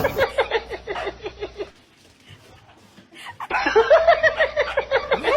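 A person laughing in quick repeated bursts, breaking off for about two seconds in the middle, then laughing again.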